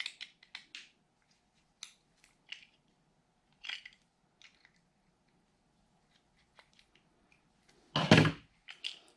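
Light plastic clicks and crackles as a small plastic cover on an RC truck's chassis is worked loose by hand, with a louder clunk about eight seconds in.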